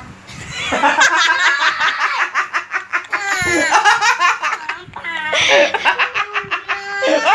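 Hearty laughter, starting under a second in and going on in long runs of rapid repeated bursts, at least partly from a young child.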